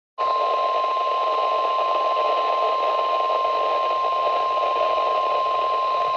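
NOAA Weather Radio 1050 Hz warning alarm tone: one steady, high, unbroken beep that starts suddenly, heard over radio receiver hiss. It is the signal that a warning follows, here a tornado warning.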